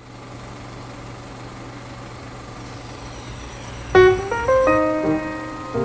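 Piano music: after a steady faint hiss and hum, piano notes begin about four seconds in, a short run of separate notes struck one after another.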